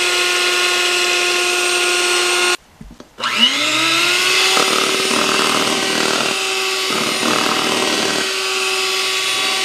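Electric mixer whipping heavy cream, its motor running with a steady whine. The motor stops briefly about two and a half seconds in, then starts again with a rising whine and runs steadily as the cream begins to thicken.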